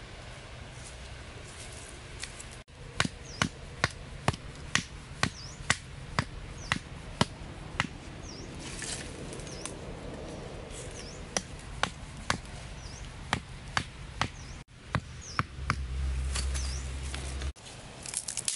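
A hand-held blade chopping through thin green saplings near the ground, in sharp strokes of about two a second with short pauses. Near the end there is a low rumble.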